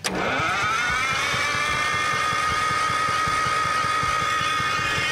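The grader's Detroit Diesel being cranked by its electric starter, right after its fuel lines were swapped. It comes in suddenly with a high starter whine that drops and settles into a steady tone about a second in, over rapid chugging pulses from the engine turning over.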